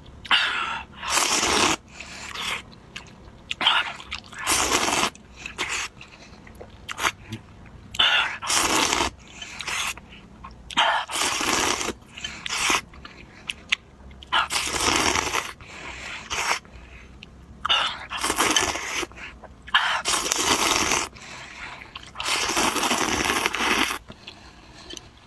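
A person eating noodles close to the microphone: repeated noisy slurps and chewing, one burst every second or two, the longest near the end.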